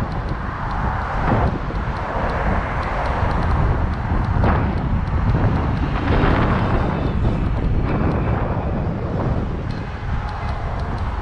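Wind buffeting the microphone of a camera on a moving bicycle, over a steady rush of outdoor traffic noise that swells about four to seven seconds in.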